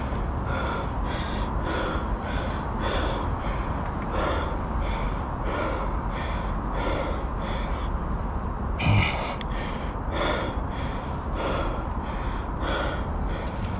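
A cyclist's hard, rhythmic breathing, about two to three breaths a second, over a steady low rumble, with a single knock about nine seconds in.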